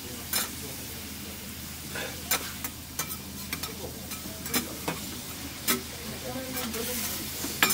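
Skewered beef offal (horumon) sizzling on a flat metal griddle, with sharp clicks of metal tongs tapping and scraping on the plate about every second.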